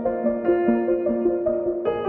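Background music: a melody of evenly paced notes over held chords.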